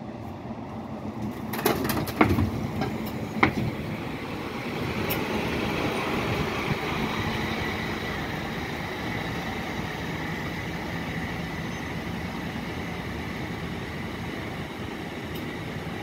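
Mercedes-Benz Tourismo coach's diesel engine running as it drives past at low speed and pulls away around a bend, with a few sharp knocks as it passes close by.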